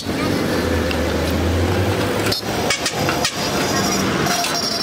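Steady outdoor traffic noise, with a vehicle engine's low drone for the first two seconds and a few light clinks.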